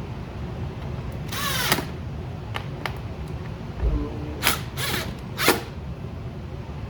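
Phillips screws being driven tight into the air filter housing cover, heard as a squeaky rasp and then a few sharp clicks.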